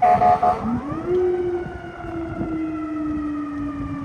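FDNY fire apparatus air horn blasting for about half a second, then its siren winding up quickly and slowly winding down.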